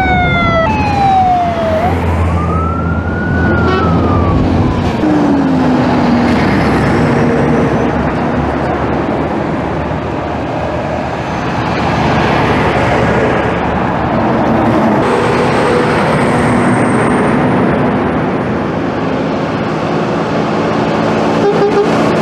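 A convoy of heavy trucks hauling construction machinery passes close by on a highway: a loud, steady rush of engines and tyres. In the first few seconds a siren wails, its pitch falling, rising and falling again.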